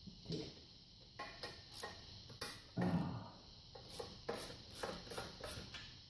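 Socket ratchet clicking in short runs, roughly three clicks a second, as the exhaust header-pipe bolts are worked loose.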